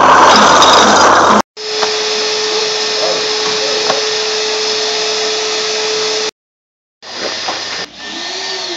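Vacuum cleaner running, sucking air through a long, thick PVC pipe: a steady rush of air with a steady whine. It is louder for the first second or so and cuts off suddenly to silence twice.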